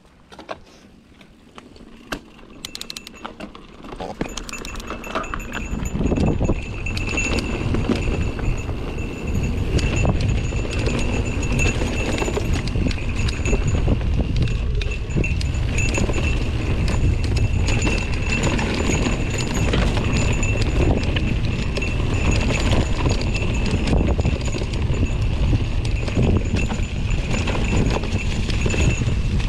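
Mountain bike descending a dirt forest trail: tyres rolling over dirt and leaves and the bike rattling over bumps, with rushing wind noise on the helmet camera. It starts with a few light clicks and grows loud as speed builds about five seconds in.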